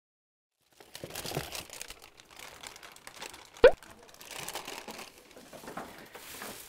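Plastic shopping bags rustling and crinkling as they are handled, starting about a second in, with one sharp knock about halfway through.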